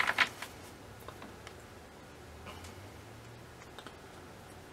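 Light clicks and taps of small plastic toy figures being handled, sharpest right at the start, then a few faint scattered ticks over a low steady hum.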